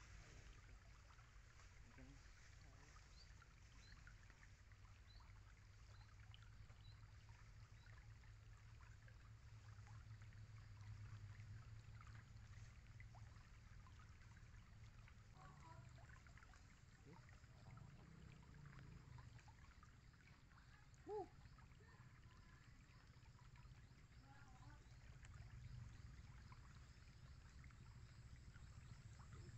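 Near silence: faint outdoor ambience with a steady low rumble and light scattered ticking. A brief pitched chirp stands out about 21 seconds in.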